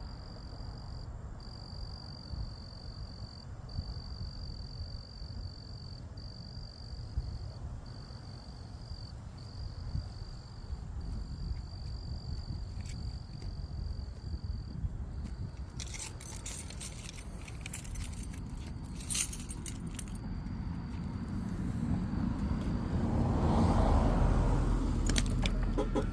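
Crickets chirping in a steady high-pitched trill, broken now and then by short pauses, over a low background rumble. A cluster of sharp high clicks comes about two-thirds of the way in, and a passing vehicle swells up near the end.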